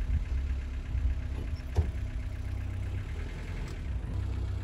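Safari Gypsy jeep's engine running at low revs, a steady low rumble, with a single sharp knock about two seconds in.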